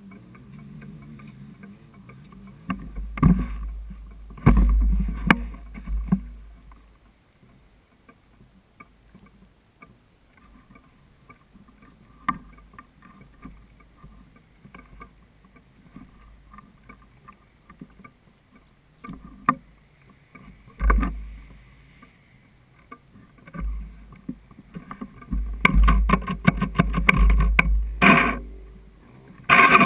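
Gusts of wind buffeting the microphone of a camera mounted on a stalled quad, with scattered knocks and a patch of rapid rattling and clatter from the machine being handled. Right at the end the Yamaha 450 quad's engine starts up.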